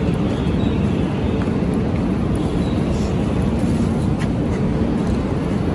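Steady low rumble of a crowded bullet-train platform, with a few faint clicks and knocks.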